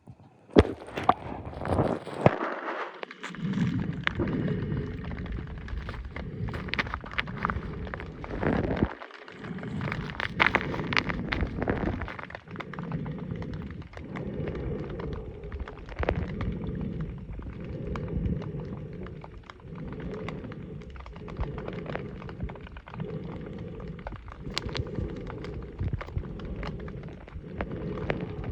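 Mountain stream water rushing and splashing, a steady noise that swells and fades, with many sharp clicks and knocks through it, most of them in the first half.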